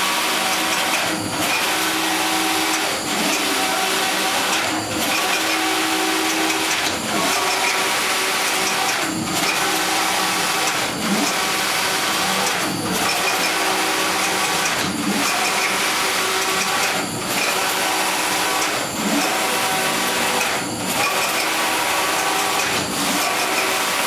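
Stoll computerised flat knitting machine running, its carriage travelling across the needle bed with a steady mechanical whir and a regular clack about every two seconds.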